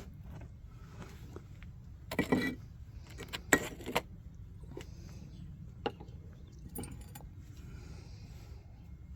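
Beehive frames and gear being handled: a few short clicks, knocks and rustling clatters, the loudest about two and three and a half seconds in, over a steady low rumble.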